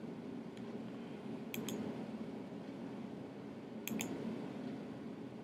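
Two pairs of sharp computer mouse clicks, about a second and a half in and again about four seconds in, over a steady low room hum.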